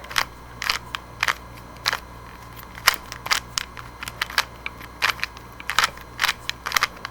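Speed cube's layers being turned by hand: a quick, irregular run of sharp plastic clicks as each face is twisted.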